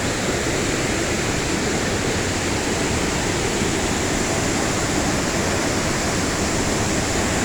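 Nauyaca waterfall: water falling and crashing into its pool, a loud, steady, unbroken rush.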